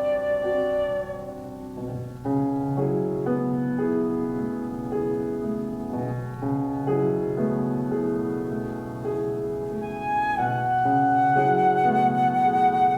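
Flute and piano playing classical chamber music. The flute holds a note, drops out about a second in while the piano plays chords in a steady pulse, then comes back in about ten seconds in with a long high note over the piano.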